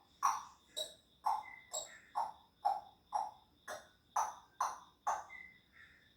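Grey parrot mimicking a sound effect: about eleven short, sharp popping sounds, evenly spaced at roughly two a second, followed by a brief whistle near the end.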